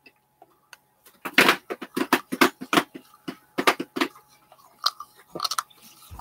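Irregular sharp taps and clicks from objects being handled close to the microphone, starting about a second in and coming several times a second.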